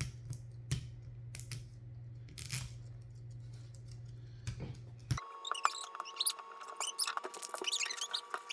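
Plastic wrapper on a toy capsule crinkling and tearing as it is peeled open by hand: scattered crackles and clicks that grow busier after about five seconds. A steady low hum sounds under the first five seconds and stops abruptly.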